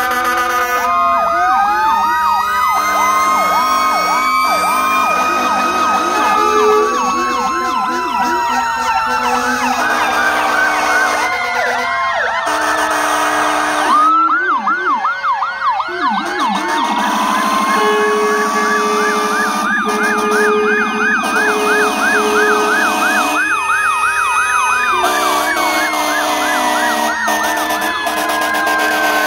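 Several fire engine sirens sounding at once, overlapping: slow rising-and-falling wails mixed with fast yelps. About two-thirds of the way through, a string of short lower blasts sounds under them.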